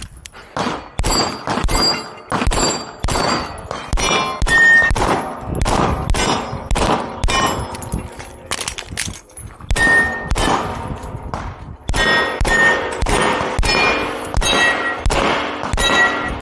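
Rapid handgun shots fired at steel targets, many answered by the high ringing clang of a hit steel plate, in uneven strings of quick shots with short pauses between.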